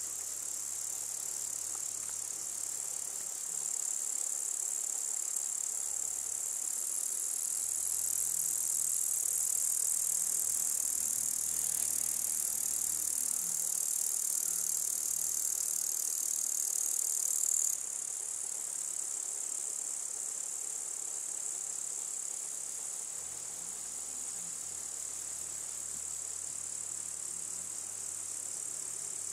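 Dense insect chorus: a steady, high-pitched shrilling that gets louder a few seconds in and drops abruptly about two-thirds of the way through.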